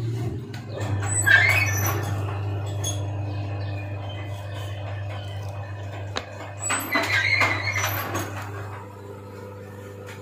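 Metal scraping and clinking as a starter motor's steel field housing is slid down over the armature onto its end housing and the brushes are handled, louder about a second in and again around seven seconds in, over a steady low hum.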